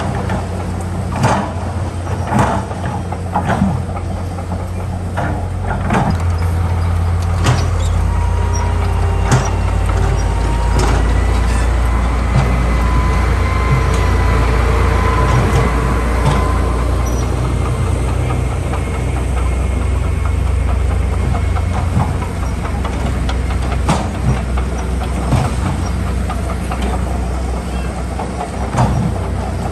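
Heavy diesel earthmoving machinery running steadily with a deep engine drone, punctuated by frequent sharp metallic clanks. A high squeal sounds for a few seconds around the middle.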